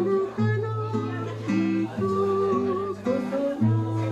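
Music: an acoustic guitar played with a steady bass line beneath it and a melody line above, in a song's accompaniment.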